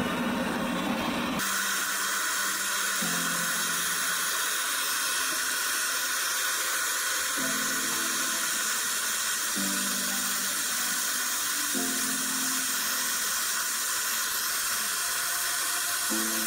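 Hand-held gas torch flame hissing steadily as it heats a small clay crucible of gold. Soft ambient background music plays underneath, its held chords changing every couple of seconds.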